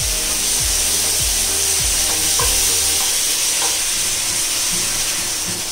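Chicken frying in mustard oil sizzling steadily in a pan as water is poured in and stirred with a spatula, with a few light scrapes of the spatula.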